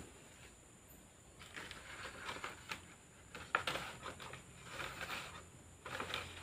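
Bamboo poles scraping and knocking against each other and the bamboo roof frame as they are laid in place, in several short bursts with a sharp knock at the start.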